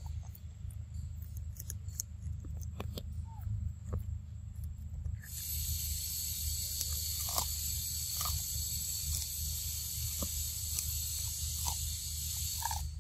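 A steady, high-pitched insect drone, cicada-like, comes in suddenly about five seconds in and cuts off near the end, over a constant low rumble. Short clicks and brief chirps are scattered throughout.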